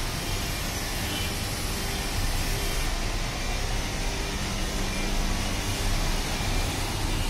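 Road traffic: a steady mix of motorcycle and car engines and tyres passing by.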